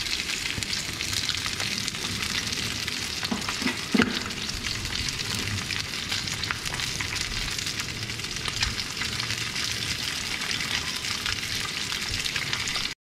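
Chunks of fish shallow-frying in oil in a pan, their skin browning golden: a steady sizzle with scattered crackles and spits of oil, and one sharper pop about four seconds in.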